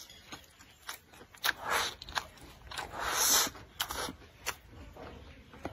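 Close-miked eating sounds of a man chewing a mouthful of rice and cured pork: wet smacks and small clicks at an uneven pace, with two longer, louder bursts of mouth noise, one under two seconds in and one just past the middle.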